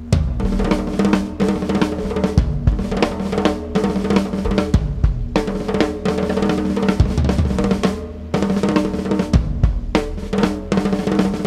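Acoustic drum kit played solo with sticks in fast, dense patterns across snare and toms, with deep bass drum hits. It starts abruptly and breaks off briefly a couple of times, over a steady drone held underneath.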